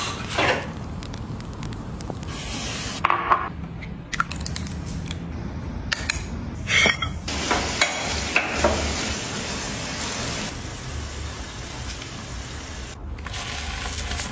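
Handling sounds of small objects and packaging, with clicks and rustles. About seven seconds in, a steady hiss of running water sets in and lasts some six seconds.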